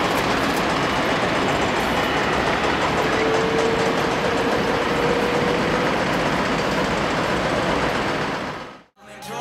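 Steady distant roar of a Boeing 747-400 cargo jet's engines during its landing rollout, with a faint whine that rises slightly partway through. It fades out near the end, and music starts.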